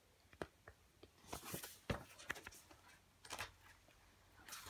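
Faint handling of a paperback picture book's pages: a few soft paper rustles as pages are turned, with scattered small clicks.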